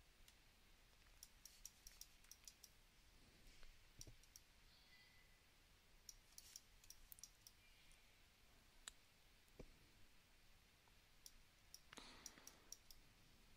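Faint, scattered clicks of a computer mouse and keyboard, singly and in short runs, over near silence.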